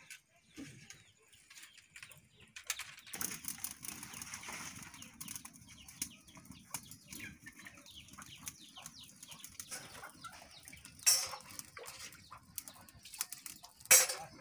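Fire of dry palm leaves and sticks crackling in a clay mud stove (chulha) as it catches, with chickens clucking in the background. Two sharp metal clanks from steel pots being handled, the second near the end.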